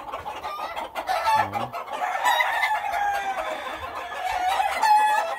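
Several game roosters crowing, their calls overlapping at different pitches, with one long falling crow about two seconds in.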